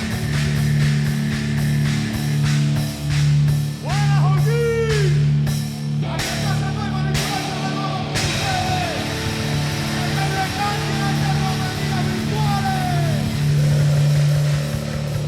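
Rock music with drums and a heavy, held low note; sliding notes bend up and down about four seconds in and again later, with sharp drum and cymbal hits in the middle.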